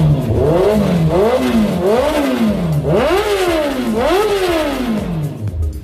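Honda CB650R's inline-four engine being free-revved after an ECU tune, in a series of quick blips that each rise and fall in pitch, through an aftermarket exhaust.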